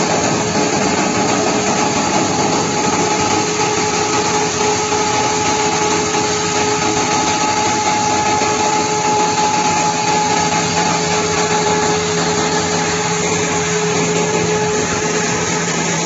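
YMPJ218 mobile wood chipper running: a loud, steady mechanical noise with a steady whine over it and no breaks or impacts.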